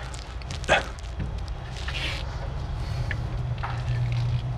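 Electric-converted Ford F-100 pickup rolling slowly with no engine running: a very quiet, low steady hum that grows a little louder toward the end, with a single knock near the start.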